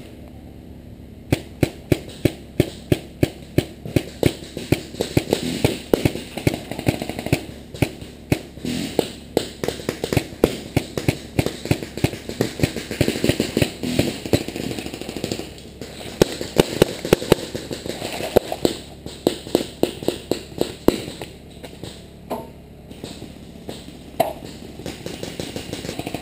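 Paintball markers firing in rapid strings of sharp pops, about four shots a second, starting a little over a second in, with brief pauses and the shots thinning out toward the end.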